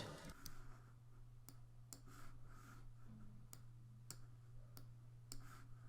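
Near silence: a steady low hum with a dozen or so faint, sharp computer mouse clicks scattered at uneven intervals.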